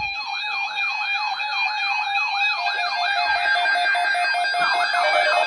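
Electronic siren-type alert tone: a rapid rising yelp sweep repeating about three times a second over several steady tones. About halfway through, a pulsing beep joins in.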